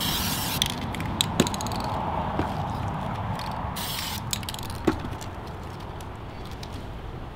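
Aerosol spray-paint can hissing in two short bursts, one at the start and one about four seconds in, with a few sharp clicks in between.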